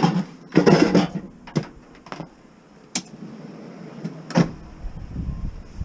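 A few sharp knocks and clunks, spaced about a second apart, the loudest about four seconds in, from scrap items being handled; a low rumble comes in after it.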